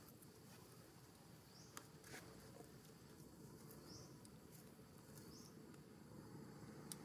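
Near silence: faint outdoor ambience with a few faint clicks and a short, high rising chirp repeated every second or so.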